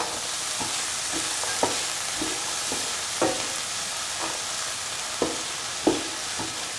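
Beetroot pieces and ground coconut masala sizzling in oil in a pan while a spatula stirs them. The spatula scrapes and taps against the pan every half second or so, over a steady frying hiss.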